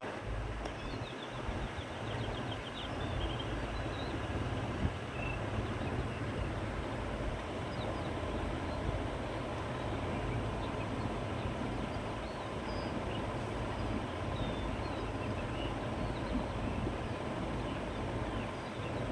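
Steady wind across open countryside, with a low rumble of wind on the microphone, and small birds chirping briefly here and there.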